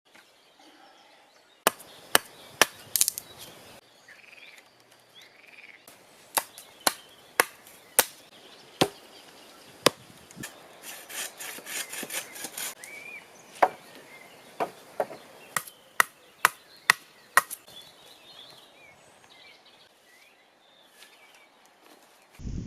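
Wood being chopped by hand: about twenty sharp blows in irregular runs, with a stretch of rasping, scraping sound about halfway through.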